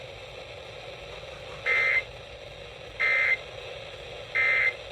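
Three short warbling data bursts of an EAS/SAME end-of-message code, each about a third of a second long and about a second apart, over steady weather-radio hiss. They signal the end of the severe thunderstorm warning broadcast.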